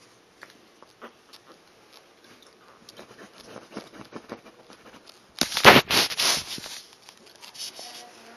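Soft rustling and small scratching of Shih Tzu puppies shifting on plush blankets and pillows, with a loud burst of rustling lasting about a second and a half, about five and a half seconds in.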